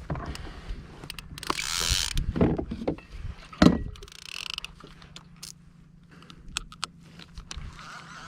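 Fishing reel being worked on a kayak, with scattered mechanical clicks and ticks, a brief rushing noise about two seconds in and a sharp knock near the middle.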